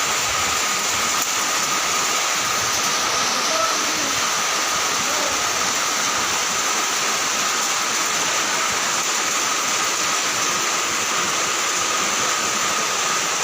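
Steady, unbroken rush of water noise with no breaks or separate events.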